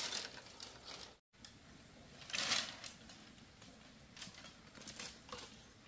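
Scattered faint clicks and rustling, with a sharp click at the start and a louder rustle about two and a half seconds in.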